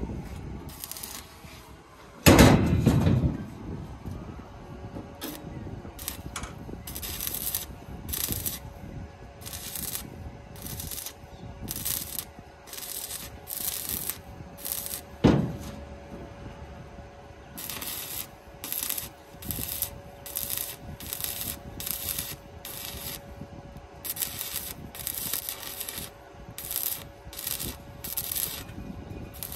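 Stick arc welding on a truck's steel body: short crackling bursts of the arc, one after another about every half-second to second, over a faint steady hum. Two loud metal knocks ring out, one a couple of seconds in and one about halfway.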